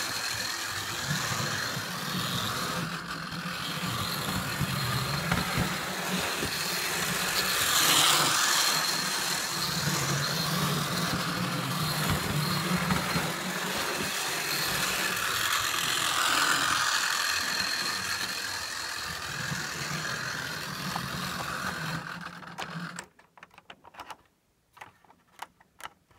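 Model train locomotive's electric motor whirring and its wheels running steadily along the track. The running stops abruptly near the end, followed by a few light clicks and taps of model cars being handled.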